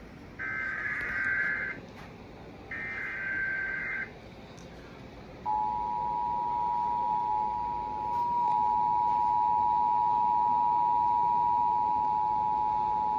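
Emergency Alert System broadcast: the last two of three short screeching SAME digital header bursts, then about a second and a half later the steady two-tone EAS attention signal (853 and 960 Hz together) begins and holds. It announces a National Weather Service severe thunderstorm warning.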